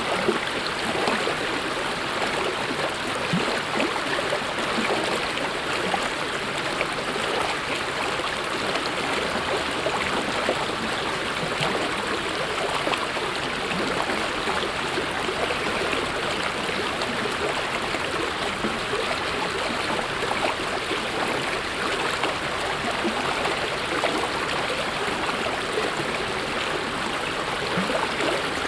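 Mountain stream flowing steadily over rocks, a continuous rush of water with small gurgles and splashes.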